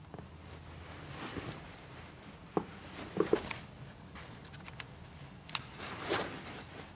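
Handling noise from a handheld camera moved about against a window: scattered light clicks and taps, a sharp double tap about three seconds in, and a short rustle near the end.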